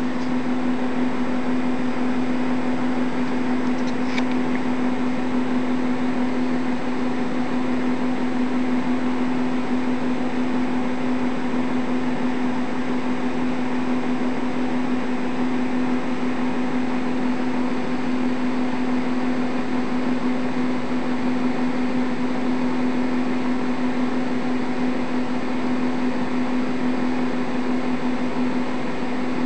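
A steady drone over even hiss, with one strong low hum and a faint high whine, unchanging throughout; a small click about four seconds in.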